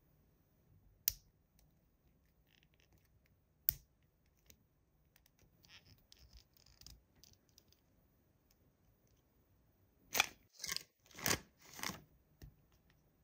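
Clear plastic packaging bags crinkling in hand, in four loud bursts near the end. Before that, two sharp plastic clicks and a light rustle as a small plastic toy figure is handled and posed.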